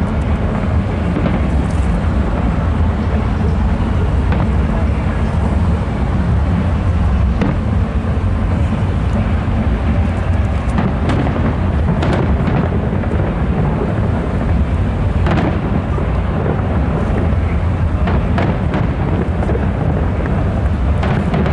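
Aerial fireworks display: a continuous deep rumble of shell bursts, with a sharp bang or crackle every few seconds, about ten in all.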